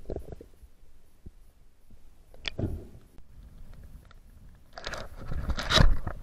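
Camera handling noise: the camera bumping and rubbing against a neoprene wetsuit, with a brief knock about two and a half seconds in and rough scraping that builds to its loudest near the end.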